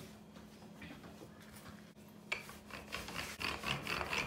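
Wooden rolling pin rolling out pizza dough on a plastic pastry mat: quiet at first, then from about two seconds in a run of rubbing strokes, a few a second.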